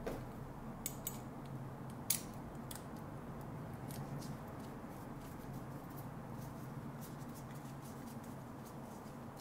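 Small metallic clicks and scrapes of a screwdriver working the terminal screw of a lamp receptacle as a wire is fastened, with a sharper click about two seconds in, over a steady low room hum.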